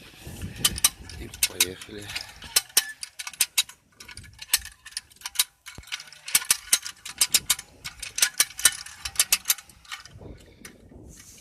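Matrix 52225 hand lever winch being worked: its double ratchet wheel and pawl clicking in several quick runs of sharp clicks with short pauses between them.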